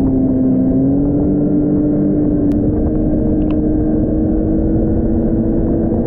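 Arctic Cat snowmobile engine running steadily as the sled cruises along the trail, its pitch dipping briefly and then climbing slowly, over a low rumble.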